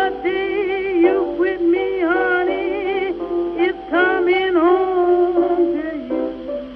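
Vintage blues record: a wavering, sliding lead melody line over steady piano chords, with the narrow, dull sound of an old recording.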